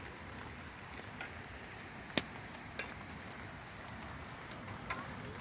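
Steady rain falling, with a few sharp ticks over it, the loudest about two seconds in.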